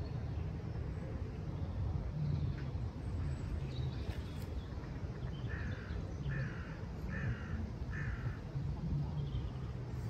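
A bird calls four times in a row in the second half, short calls about a second apart, over a steady low rumble.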